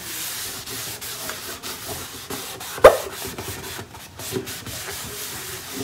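A cloth wiping silicone spray into a plastic engine cover: a steady rubbing in repeated strokes, with one sharp knock about three seconds in.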